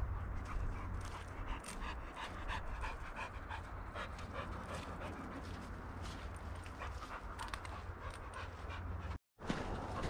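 An American Bulldog panting in quick, short breaths.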